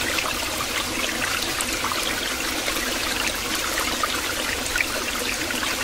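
Small landscape waterfall spilling over rocks into a pool: a steady splashing of falling water.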